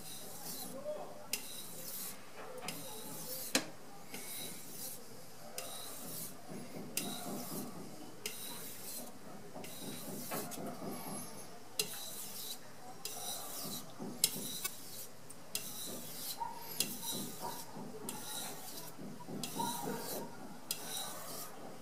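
Cheap low-grade steel knife blade stroked across a wet 8000-grit Carborundum whetstone in light strop-style passes on each side in turn, a repeated soft scraping about one to two strokes a second with an occasional sharp tick. The strokes remove the last fine burr from the edge.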